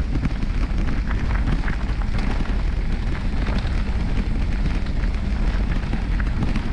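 Knobby mountain-bike tyres crunching and rattling over a loose gravel trail, a steady crackle of small clicks, with wind rumbling on the bike-mounted camera's microphone.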